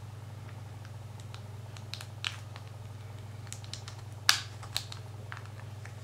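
Small sharp plastic clicks and snaps as a plastic opening pick pries at the Samsung Galaxy S2's plastic inner frame. The clicks are scattered, and the loudest comes about four seconds in, over a steady low hum.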